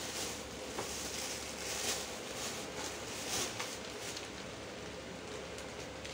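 Plastic-bagged clothes rustling and crinkling as they are handled and lifted out of a cardboard box, with a few louder crinkles.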